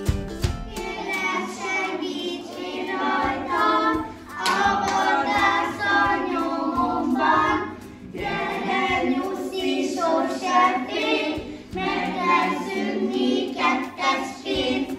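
A group of young children singing together in unison, in phrases of about four seconds, each broken by a short pause.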